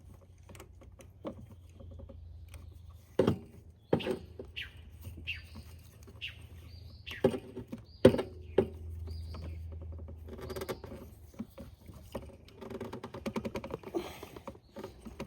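Hand tools working at a seized choke cable on an ATV carburetor: sharp metal clicks and knocks with short squeaks, a few louder knocks in the middle and busier clicking near the end, over a steady low hum.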